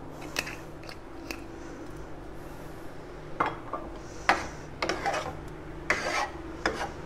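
A metal spoon stirring and scraping through wet minced chicken in a steel pot, in uneven strokes that start about three seconds in. A faint steady hum runs underneath.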